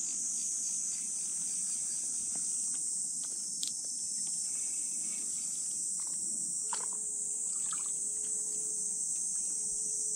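Insects shrilling steadily in a continuous high-pitched chorus, with faint scattered clicks. A faint steady hum joins about two-thirds of the way in.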